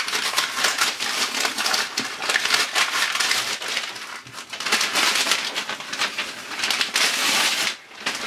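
Brown kraft wrapping paper being torn open and crumpled by hand as a package is unwrapped: dense, continuous crackling and rustling, with a brief lull about four seconds in and another near the end.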